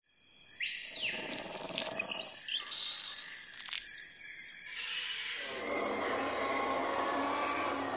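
Jungle-style intro sound effects: a bird call about half a second in, a few chirps and clicks, then a fuller, steady sound from about five and a half seconds on.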